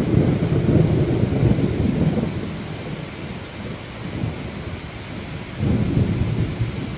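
Thunder over steady rain. A loud clap breaks out at the start and rumbles on for a couple of seconds before fading, then a second rumble swells up near the end.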